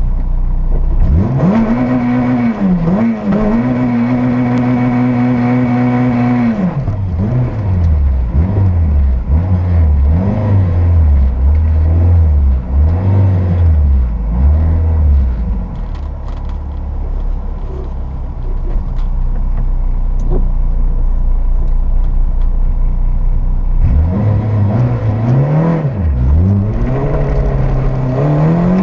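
Renault Clio 172 Sport's 2.0-litre four-cylinder engine heard from inside the cabin: revs held high for several seconds, then blipped rapidly up and down, settling lower for a while, and climbing again near the end as the car pulls away.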